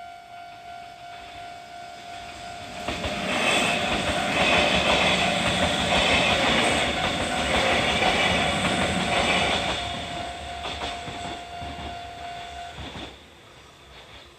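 Japanese railway level-crossing warning bell ringing its steady kan-kan. A Kintetsu train passes through the crossing from about three seconds in, loudest for about seven seconds and then fading away. The bell stops suddenly about thirteen seconds in, as the crossing clears.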